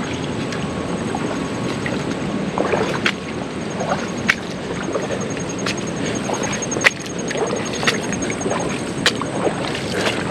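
Creek water sloshing and trickling, with scattered sharp clicks and knocks every second or two.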